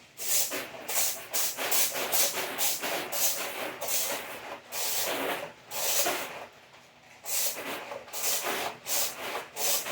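X-Shot water blaster squirting repeated short hissing spurts of water, about one or two a second, with a brief pause about six seconds in.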